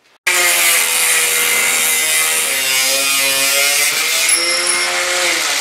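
Angle grinder with an abrasive cut-off wheel cutting through a steel drill bit: a loud, steady grinding over the motor's whine, which dips and rises in pitch as the wheel is loaded. It starts abruptly about a quarter second in.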